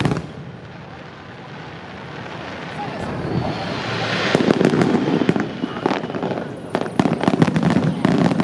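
Aerial fireworks bursting. After a short lull, a hiss builds about three seconds in and gives way to dense crackling and repeated sharp bangs.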